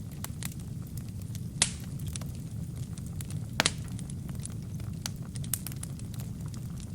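Wood fire burning in a fireplace: a steady low rumble of flames with frequent small crackles and two sharper pops, about a second and a half in and again near the middle.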